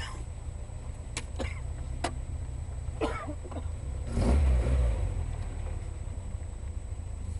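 A car drives past close by about four seconds in, its engine swelling briefly and then fading, over a steady low rumble. A few sharp knocks come in the first three seconds.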